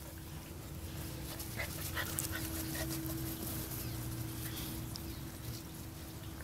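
English Golden Retriever puppies making faint small whimpers, with scattered light rustles and ticks and a faint steady hum underneath.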